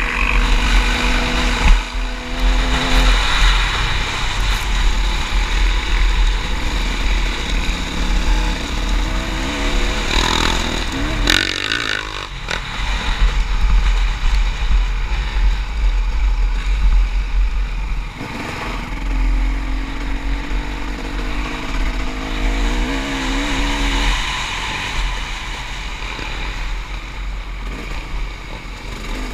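Off-road motorcycle engine running hard while riding, its pitch rising and falling with the throttle, under heavy wind rumble on the microphone.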